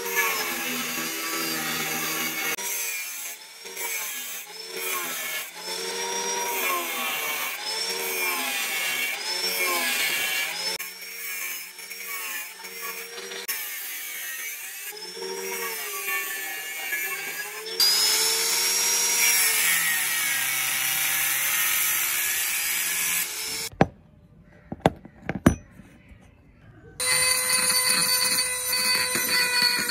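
Angle grinder cutting a metal plate, its whine dipping and recovering over and over as the disc is pressed into the cut, turning harsher and brighter about 18 s in. After a short pause with a few clicks, a rotary tool with a felt polishing bob starts up near the end with a steady high whine.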